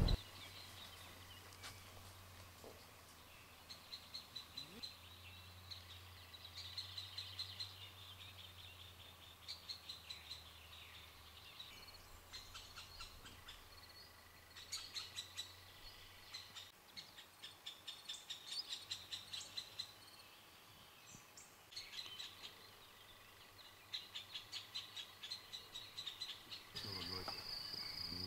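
Faint outdoor chirping: short trains of rapid high chirps recur every few seconds over a low steady hum. Near the end a continuous high trill starts.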